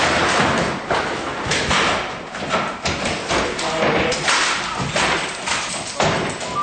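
Repeated heavy thuds and bangs of office desk equipment being struck and shoved about, one after another with little pause.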